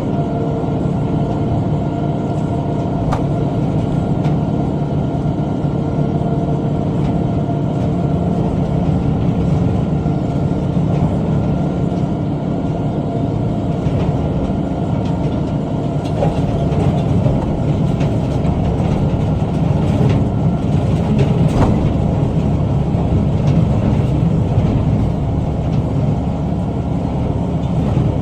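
Tractor engine running steadily under load while pulling a bush hog rotary cutter through brush, with a few sharp ticks.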